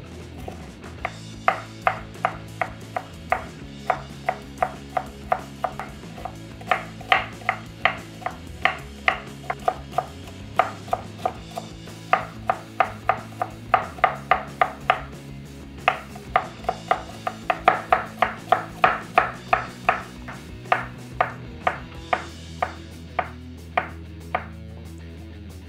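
Chef's knife chopping vegetables (green bell pepper, onion, cabbage, button mushrooms) on a wooden cutting board: runs of sharp knocks, about three to four a second, with short pauses between runs.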